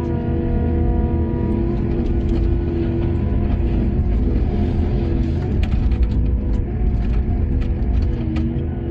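Heavy diesel machinery running with a steady low rumble, rising a little in level around the middle, with scattered sharp knocks, under background music of long held notes.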